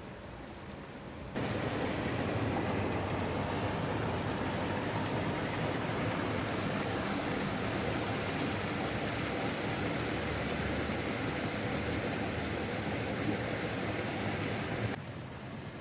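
A steady rushing noise that starts abruptly about a second in and cuts off suddenly near the end.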